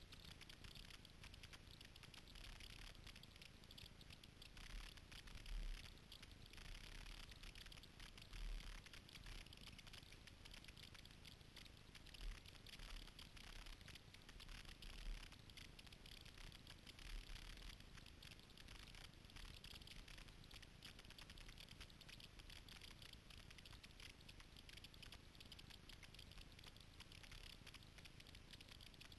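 Faint patter of water from a kayak being paddled, with a few brief low bumps in the first half.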